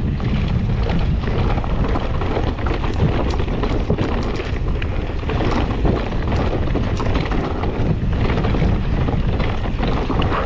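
Wind buffeting the action-camera microphone during a mountain-bike descent on an enduro trail, a constant low rumble with many quick clicks and rattles from the bike and its tyres running over the ground.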